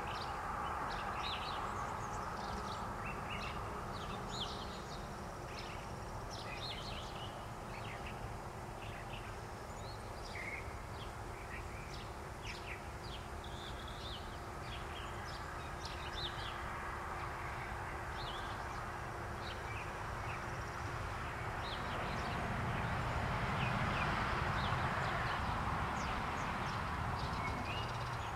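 Small birds chirping on and off over a steady outdoor background hiss, which swells for a few seconds near the end.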